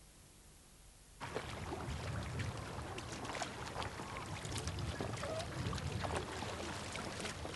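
A kayak being paddled: paddle blades splashing and water dripping and trickling, starting suddenly about a second in over a low rumble.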